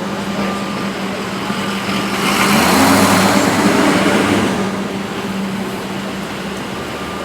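Motor vehicle engine noise: a steady engine hum, with a heavier engine and rushing noise swelling louder for about two seconds in the middle, then fading.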